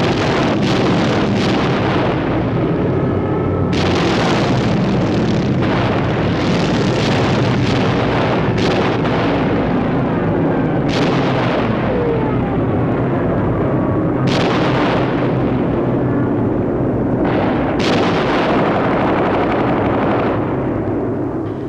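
Aerial bombing: explosions go off one after another every few seconds over a continuous heavy rumble.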